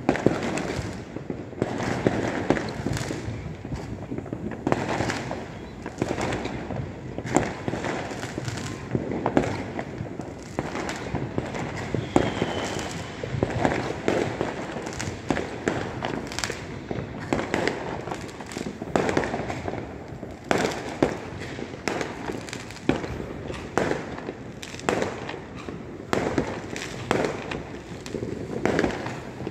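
Aerial fireworks going off close by in a continuous barrage: sharp bangs come one after another, several a second, over steady crackling, with no pause.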